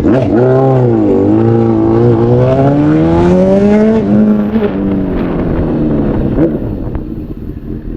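Honda CBR1000RR's inline-four engine accelerating under way: its pitch dips about a second in, then climbs steadily for about three seconds. About halfway through it falls sharply, then runs lower and steadier.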